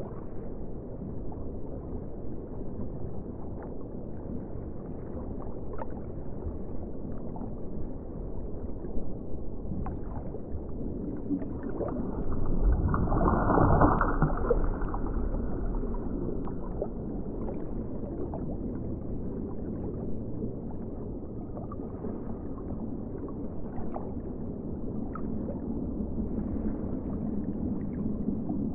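Underwater ocean ambience: a muffled, steady wash of water with faint scattered clicks, swelling louder for a few seconds near the middle.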